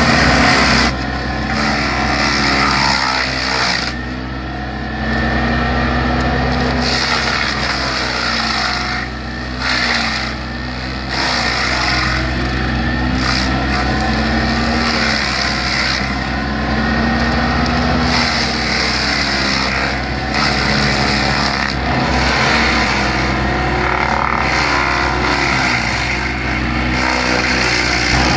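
Cangini hydraulic stump grinder attachment on a mini excavator grinding a tree stump. The cutter's whine falls and rises again every couple of seconds as it bites into the wood, over the steady running of the excavator's engine and the rough noise of chipping.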